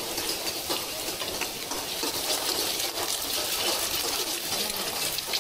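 Pad thai ingredients stir-frying in a hot pan: a steady sizzling hiss with fine crackles throughout.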